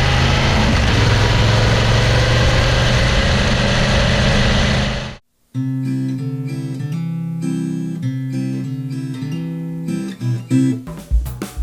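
BMW F 750/850 GS motorcycle's parallel-twin engine running with a steady hiss for about five seconds, then cut off abruptly. After a moment of silence, acoustic guitar music with plucked notes begins.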